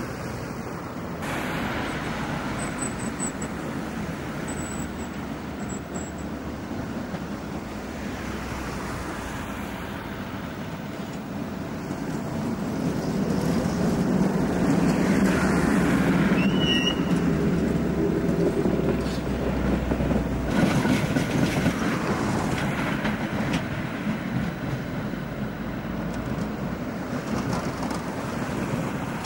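Tatra trams running on street track, with road traffic alongside. The sound grows louder about halfway through as an articulated tram rolls past.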